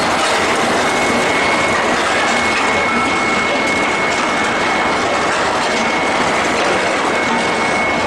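Steady, loud machinery din from a steel-ball hot-rolling line fed by an induction bar-heating furnace, with a thin high whine over it that comes and goes.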